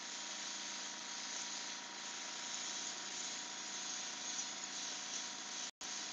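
Steady hiss of an Iwata Eclipse airbrush spraying paint, with a faint steady hum beneath it. The sound cuts out for an instant near the end.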